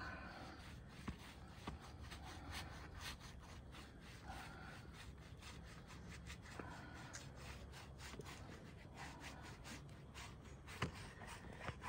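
Paintbrush bristles rubbing over the rough side of a wooden log stump in quick, repeated strokes as a finish is brushed on, faint.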